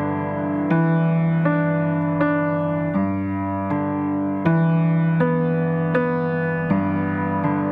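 Background music: a slow piano or electric-piano tune, a sustained chord or note struck roughly every three-quarters of a second.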